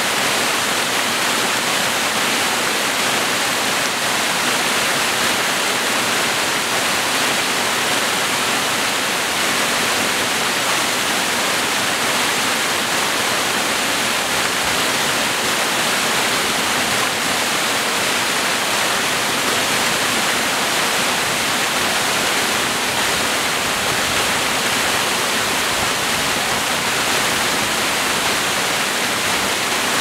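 A small waterfall spilling over a mossy rock face, its water rushing with a steady, even hiss.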